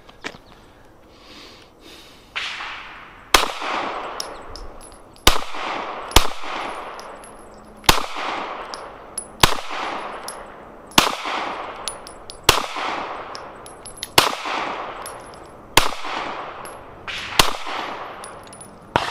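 Glock 19 9mm pistol firing 115-grain full-metal-jacket rounds in slow, deliberate fire: about ten shots, the first a few seconds in, then roughly one every one and a half to two seconds. Each shot is followed by a long echo that fades out.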